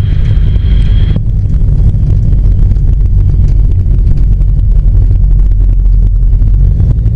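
Ikarus C42 microlight's engine and propeller running, heard inside the cockpit as a loud, steady low rumble. A thin high steady tone sounds over it and cuts off about a second in.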